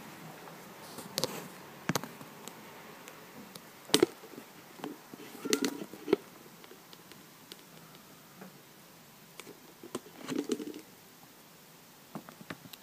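Phone handling noise: scattered sharp knocks and rustles as the phone is held and moved, the loudest knocks about four seconds in, with short spells of rustling in the middle and near the end, over a faint steady hiss.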